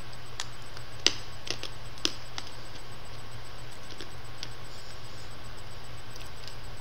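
Mouth sounds from sucking a hard-candy lollipop: a few short sharp clicks, the loudest about a second in and again at two seconds. They sit over a steady hiss and low hum from the webcam microphone.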